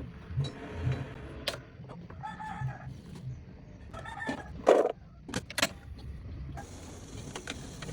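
A rooster crowing and chickens clucking in short pitched calls, mixed with a few sharp clinks and knocks, the loudest just before the midpoint.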